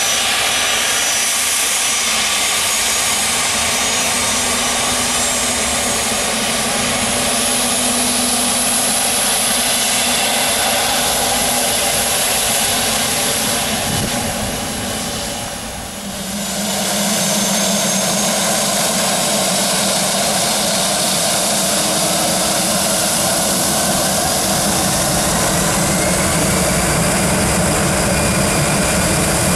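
Dassault Falcon 7X business jet's three turbofan engines running, loud jet noise with a high whine. The sound dips for a second or two about halfway through, then comes back fuller and stronger.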